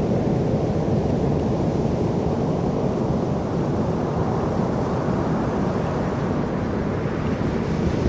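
Heavy ocean surf breaking and rumbling steadily on the beach, with wind buffeting the microphone.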